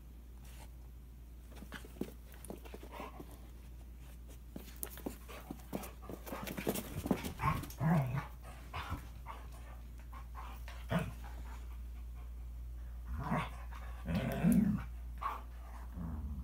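Toy Manchester terrier and standard poodle fighting: irregular scuffling and scratching, with short low growls about halfway through and again near the end.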